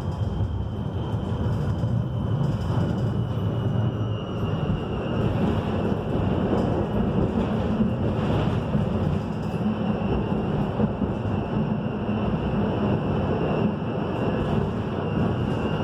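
Konstal 105NWrMp tram with Protram traction motors running along the line, heard from inside the passenger compartment: a steady rumble of wheels and running gear with a thin high motor whine that drifts slightly in pitch.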